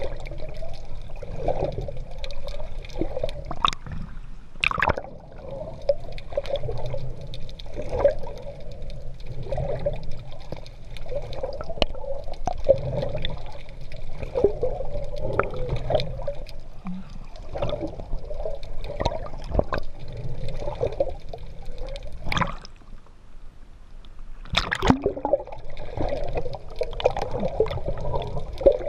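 Sea water gurgling and splashing around a GoPro camera on an open-water swimmer, with scattered sharp clicks and a brief quieter lull about three-quarters of the way through.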